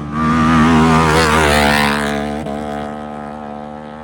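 Off-road race vehicle's engine running at high revs as it passes close by: it swells loud just after the start, with a rush of noise at its peak about one to two seconds in, then fades away.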